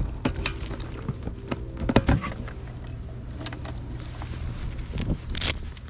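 Keys jangling and the lock and latch of a GIVI plastic motorcycle top case clicking and knocking as it is unlocked and its lid opened: a string of sharp clicks, the loudest about two seconds in.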